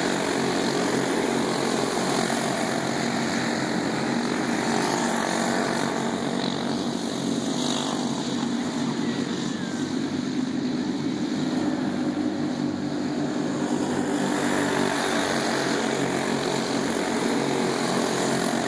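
Several small racing go-kart engines running together as a pack laps a dirt oval, a continuous buzzing drone. It eases off a little in the middle and swells again toward the end as the karts come back around.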